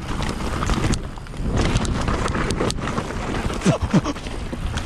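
Mountain bike rolling downhill over wet, loose branches and brash, with wind rushing on the microphone and several sharp knocks and clicks from the bike and the debris about halfway through. Two short falling squeaks come a little before the end.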